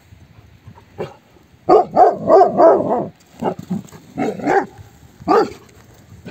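Large shepherd dogs barking: a quick run of loud barks about two seconds in, then a few single barks.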